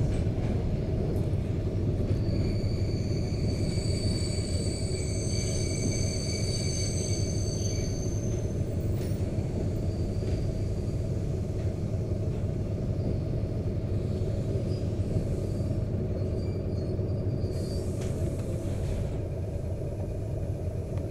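ED4MK electric multiple unit heard from inside a passenger car: the steady low noise of the train running on the rails. From about two to eight seconds in, a thin high-pitched squeal of several tones from the running gear rides over it.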